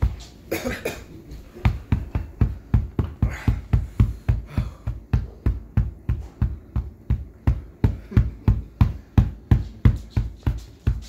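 A person in pain from a chili-hot mouthful breathing out sharply in hissing breaths, over a steady run of low thumps about three a second.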